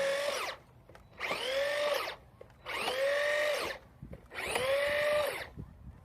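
Traxxas Maxx RC monster truck's brushless electric motor whining in four short full-throttle bursts. Each burst's pitch rises quickly, holds and then cuts off, as the truck is punched repeatedly for a wheelie.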